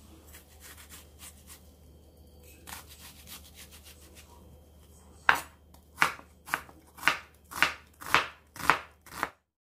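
Chef's knife cutting onions on a cutting board: quiet slicing through the onion for the first few seconds, then about eight sharp chops, roughly two a second, as the blade dices and strikes the board.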